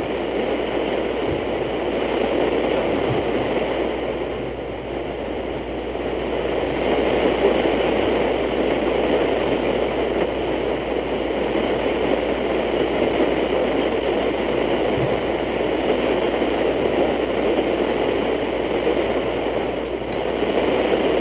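Steady hiss of radio static from a weather radio receiver, with no broadcast voice coming through; the noise swells and dips slightly.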